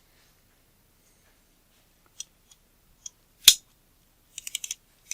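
Small metal parts of a camera lens clicking under hand and tools during reassembly: a few faint ticks, one sharp click about three and a half seconds in, then a quick run of rapid ratchet-like clicks near the end.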